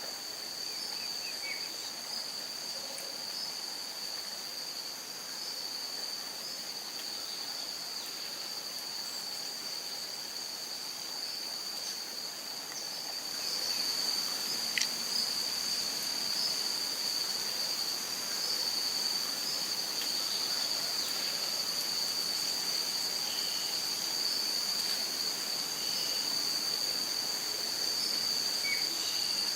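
Steady, high-pitched drone of a forest insect chorus, growing louder about a third of the way in, with a few faint, brief bird notes.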